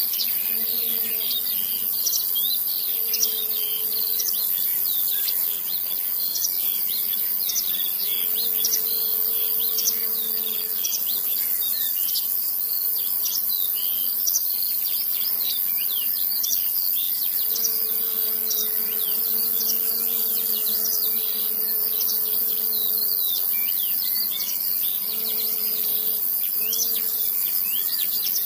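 Many small birds chirping through a steady high-pitched hiss, with a faint low hum that fades in and out every few seconds.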